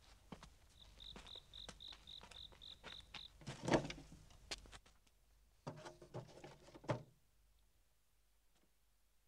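A cricket chirping in a quick, even pulse of about four chirps a second. A loud thump follows soon after, then a short clatter of knocks about six to seven seconds in.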